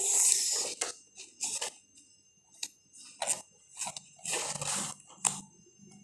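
Paper and cardboard rustling and scraping in a string of short bursts as a picture book and puzzle box are handled, with one longer rustle about halfway through.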